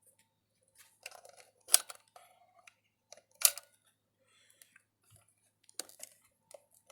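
Handling noise as a new weather radio is taken out of its packaging: plastic and cardboard rustling and crinkling, broken by three sharp clicks or snaps about two seconds apart.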